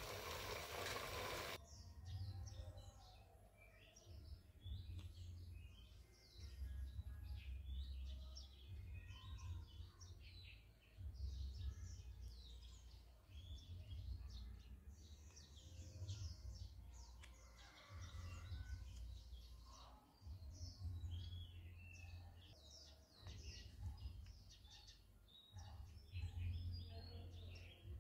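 A small battery-motor toy plane with propellers made from drink cans whirs for about a second and a half, then cuts off abruptly. After that it is quiet, with birds chirping in the background and a low rumble that comes and goes.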